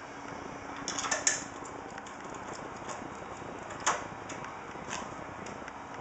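Light clicks and taps of a screwdriver and a small case-fan screw being handled: a quick cluster of clicks about a second in, a sharper single click near four seconds and a softer one about a second later, over a steady low hiss.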